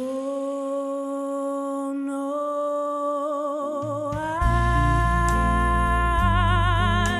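A female solo voice holding a long wordless note with vibrato, sliding up into it at the start, then stepping up to a higher held note about four seconds in as a low band accompaniment comes in underneath.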